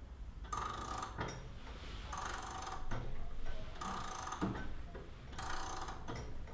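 A wall clock being wound with a key: four rounds of ratchet clicking about every second and a half, each ending in a sharper click.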